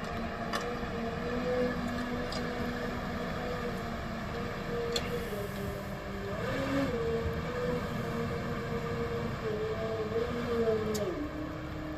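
Fat Truck all-terrain vehicle's engine running as it crawls over sharp rock mounds, its note shifting up and down and dropping near the end. A few faint clicks, likely rocks under the tyres.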